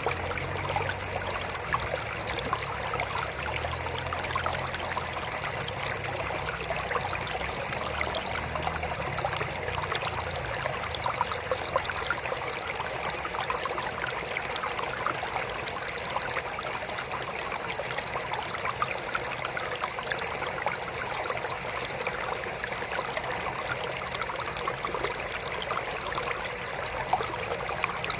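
Water trickling steadily into a mini aquarium, a continuous splashing with small bubbly flecks. A low hum underneath fades out during the first ten seconds or so.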